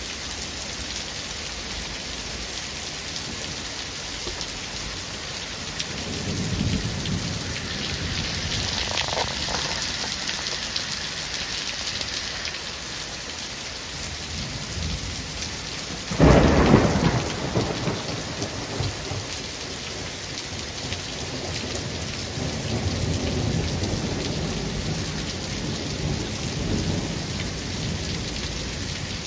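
Steady rain falling through a thunderstorm, with low rolling thunder rumbles and, about halfway through, a sharp loud thunderclap that rolls off over a couple of seconds.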